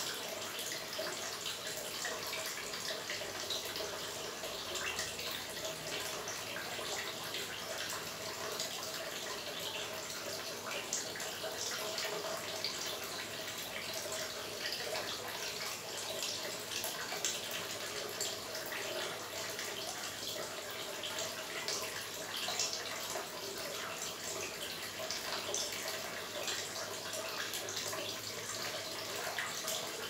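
Small garden water feature running: water steadily trickling and splashing into a shallow pond.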